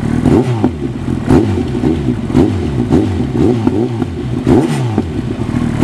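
2008 Kawasaki ZX-10R inline-four revved in repeated throttle blips through its new Akrapovic mid pipe. The pitch climbs and falls back about once a second, six times.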